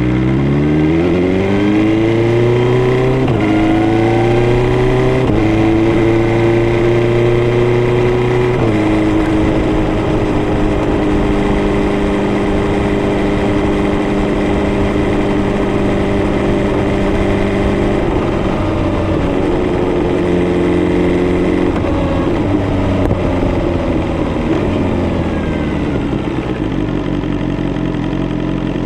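BMW S1000R's inline-four engine pulling hard through the gears, with its revs climbing and dropping back at three upshifts in the first nine seconds. It then cruises at steady revs, steps down once around the middle, and winds down with falling revs near the end before picking up again.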